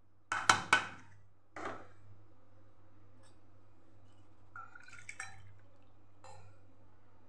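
Three quick metallic taps on a stainless steel bowl about half a second in, and another soon after, then a few faint clinks over a low steady hum.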